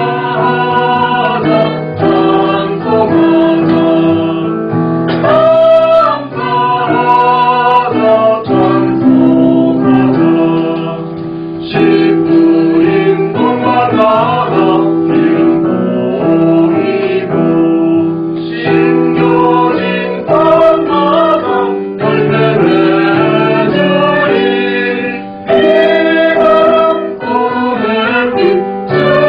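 Church choir singing a hymn with instrumental accompaniment, female voices prominent, in a continuous loud passage.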